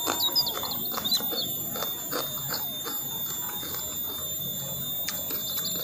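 Close-miked chewing and mouth sounds of two people eating, a string of irregular clicks and smacks. A few short high chirps sound within the first second or so.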